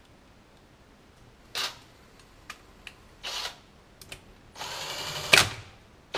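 Parkside cordless drill-driver run in short trigger bursts as it backs out the crankcase screws of a Honda Cub-type engine. There are brief runs about one and a half and three and a quarter seconds in, then a longer run of about a second near the end, with a few small clicks in between.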